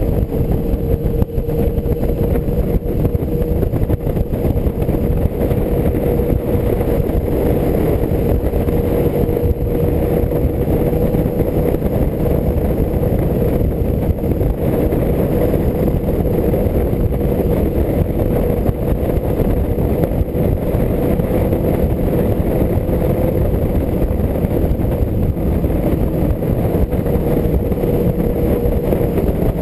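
1984 BMW R100RS's air-cooled boxer twin running steadily at freeway cruising speed, heard under heavy wind and road rush on the helmet-less GoPro microphone, with a steady droning tone throughout.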